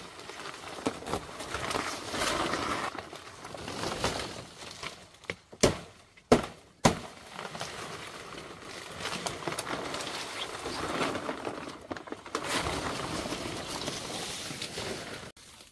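Uneven rough noise with three sharp knocks in quick succession near the middle.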